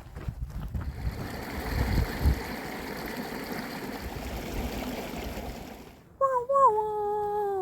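Steady rushing of a mountain stream, fading out about six seconds in. Then a person starts humming a tune, holding notes and stepping between them.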